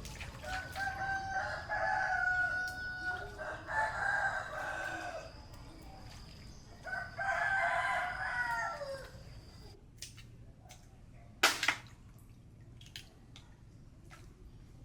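Rooster crowing, with a longer stretch of crowing over the first five seconds and another crow about seven seconds in that ends on a falling note. A single sharp knock about eleven and a half seconds in is the loudest sound.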